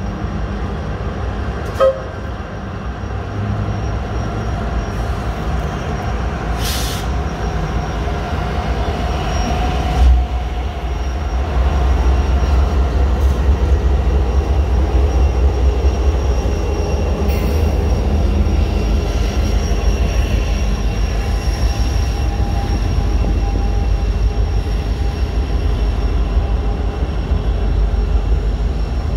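Norfolk Southern diesel freight locomotives running past, then the long freight train's cars rolling by with a steady low rumble that grows louder about twelve seconds in. A single short bang sounds about ten seconds in.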